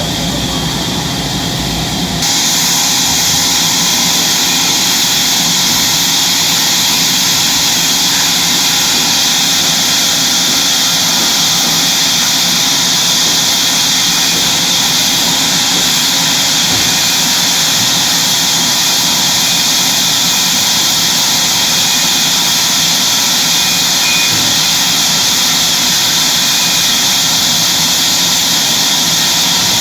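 Sawmill saw running with a loud, steady hiss that sets in abruptly about two seconds in, replacing a lower hum, and holds level.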